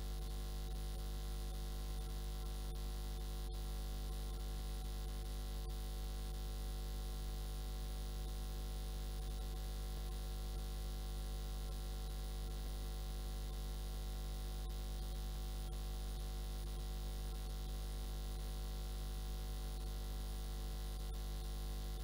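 Steady low electrical mains hum with a constant hiss from the sound system; nothing else happens.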